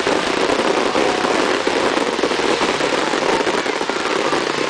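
Fireworks display going off in a dense, continuous crackle of rapid pops.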